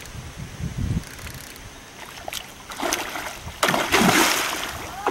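A hooked fish thrashing at the water's surface while being played on a line: two bursts of splashing, about three and four seconds in, the second louder and longer.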